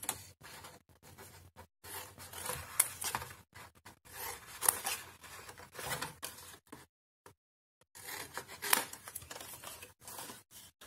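Scissors snipping through white cardstock, several separate cuts with paper rustling between them as the card is turned.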